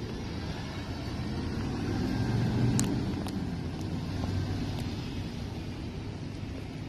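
City bus engine running as the bus drives past, a low rumble that swells to its loudest about two and a half seconds in and then eases off, with a few sharp clicks near the peak.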